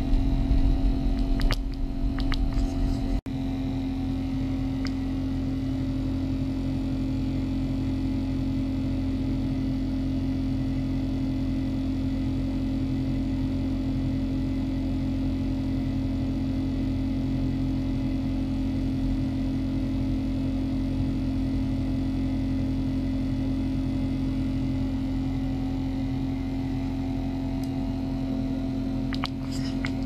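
Small ultrasonic cleaner running: a steady buzzing hum with a low rumble under it. There are a few clicks in the first seconds, then a brief dropout about three seconds in, after which the hum holds even.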